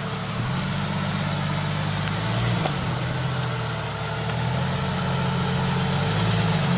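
Jeep Cherokee XJ engine running at low revs under load as the lifted Jeep crawls over a dirt mound off-road, its pitch rising and dipping slightly a few times with the throttle.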